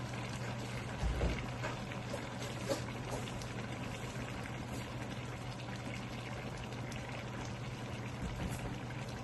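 A pan of sautéed vegetables in sauce simmering, a steady bubbling with a few faint clicks.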